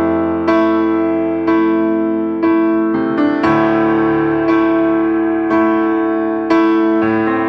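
Background music: a gentle piano or electric piano playing slow notes about once a second, each struck and left to ring out.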